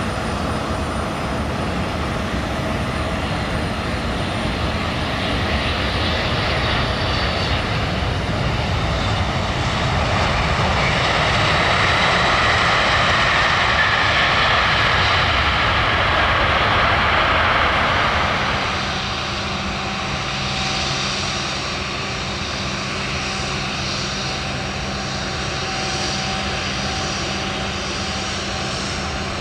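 Boeing 747-8's four jet engines on landing: a broad rushing jet noise that swells to its loudest around touchdown. It then drops off suddenly about two-thirds of the way through, leaving a steadier engine whine as the jumbo rolls out along the runway.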